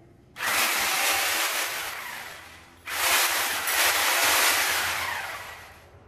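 Handheld angle grinder run in two short bursts, about half a second and three seconds in, each a loud whirring rush that starts suddenly and fades away over a couple of seconds.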